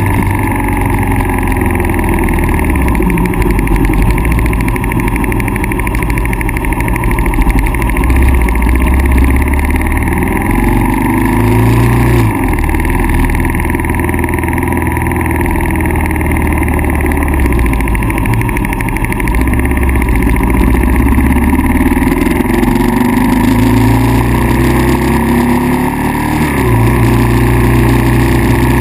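Kawasaki KLR650's single-cylinder four-stroke engine running, its speed rising and falling several times over the stretch.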